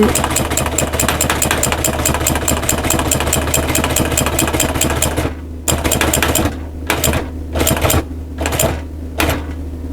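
Sewing machine stitching a seat cover: a rapid, even clatter of the needle for about five seconds, then a string of short bursts as it sews a few stitches at a time, over a steady motor hum.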